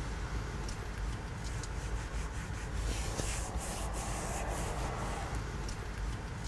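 Quiet room tone: a low steady rumble with soft rustling.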